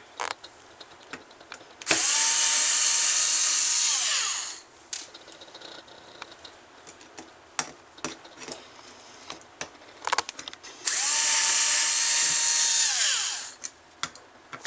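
Power drill unscrewing the small screws from a hard drive's circuit board: two runs of about two and a half seconds each, the motor whining up to speed and winding down, with small clicks and taps of handling in between.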